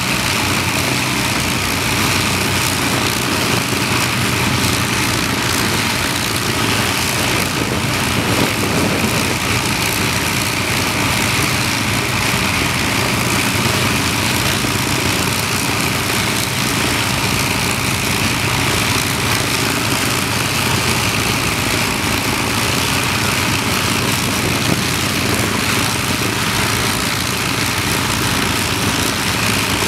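Avro Lancaster's Merlin V12 piston engines idling steadily, propellers turning, with the bomber held stationary.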